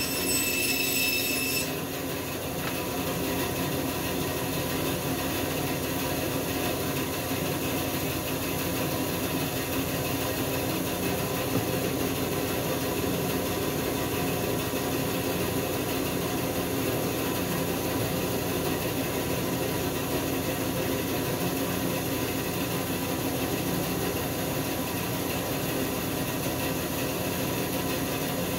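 A woodshop power tool running steadily, a constant whir with a steady hum. A high-pitched whine rides over it for the first couple of seconds, then drops away.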